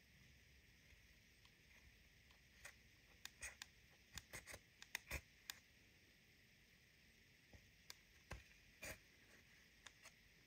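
Spatula scraping and prodding pressed eyeshadow in a plastic palette: scattered short clicks and scrapes, a cluster a few seconds in and a few more near the end.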